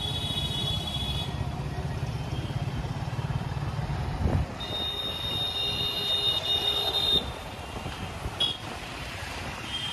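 Street traffic heard from a moving motorbike: a low engine hum with road noise that eases after a thump about four seconds in. A long high steady tone from nearby traffic sounds near the start and again in the middle.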